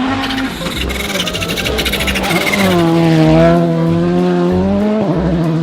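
Race-car sound: an engine revving, then holding a steady, strongly pitched note that drops away about five seconds in.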